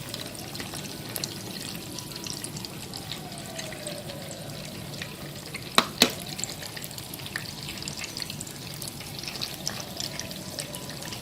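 Betel-leaf pork rolls sizzling in hot oil in a frying pan, a steady crackle, with two sharp clicks of a utensil against the pan close together about six seconds in.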